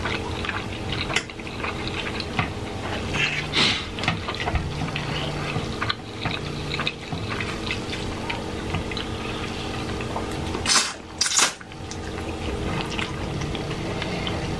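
Close-up wet eating sounds: chewing and lip-smacking over roast chicken and instant ramen noodles, with two loud slurps about eleven seconds in.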